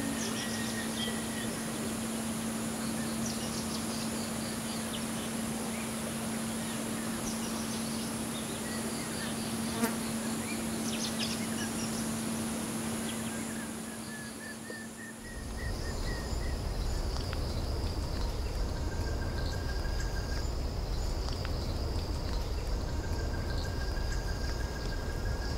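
Nature ambience of buzzing insects: a steady insect drone and a high insect trill, with scattered bird chirps. About fifteen seconds in, the ambience changes to a low rumble with repeated high bird calls.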